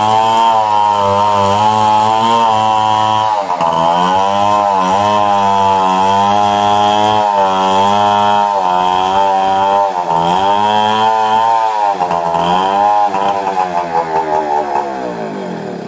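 Stihl 070 chainsaw's big single-cylinder two-stroke engine running at high speed while cutting a tree, its pitch dipping and recovering several times as the chain bites into the wood. Near the end the engine slows and the sound dies away.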